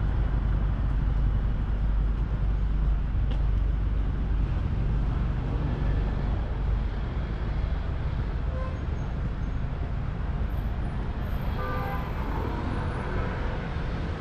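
City road traffic: a steady low rumble of passing cars, with a few faint short high tones near the end.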